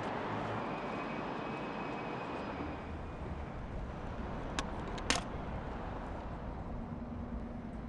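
Outdoor city ambience: a steady wash of noise with a low traffic rumble, and two sharp clicks about halfway through. A steady low note comes in near the end.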